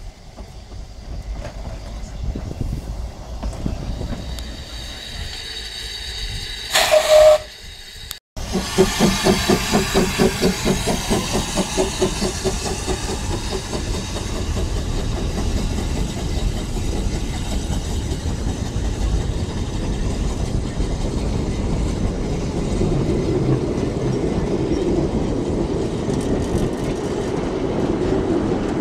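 Narrow-gauge steam locomotive: one short, loud whistle blast about seven seconds in, then after a break the engine's exhaust chuffing in a regular beat as it pulls away, running on into the steady rumble of its wagons rolling past.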